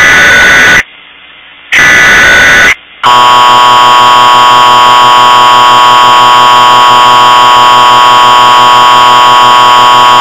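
Emergency Alert System tones: two short bursts of the digital SAME header, each a buzzing data squeal about a second long, then from about three seconds in the steady two-tone EAS attention signal, held without a break.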